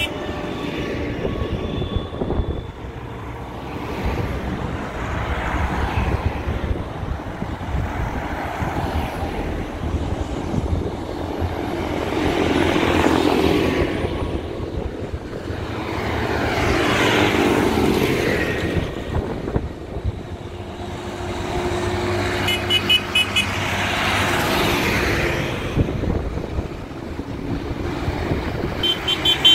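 A procession of farm tractors driving past one after another, their diesel engines swelling and fading as each one passes, loudest a little before halfway and again about two-thirds through.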